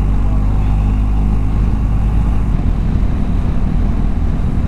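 Motorcycle engine running at a steady cruise, with a rush of wind and road noise over it.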